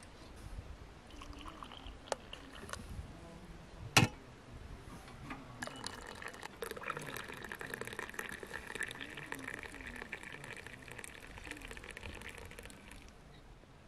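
Hot water running from a samovar's tap into a tea glass, a steady pouring stream from about six seconds in until near the end. It follows a single sharp knock about four seconds in.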